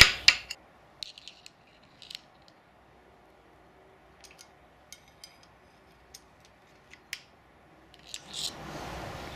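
Light metallic clicks and ticks, a dozen or so at irregular intervals, from the steel timing chain, sprockets and tensioner clip of a 1930s Singer overhead-cam engine being handled during chain fitting. A soft rustle comes near the end.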